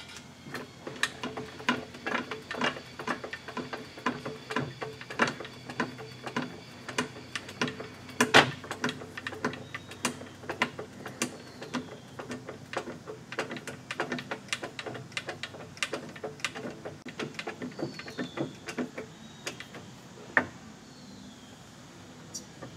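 Shop press being worked to push a new ball bearing down onto a lathe headstock gear shaft: a run of sharp metallic clicks and clunks, about two to three a second, ending with one louder click near the end.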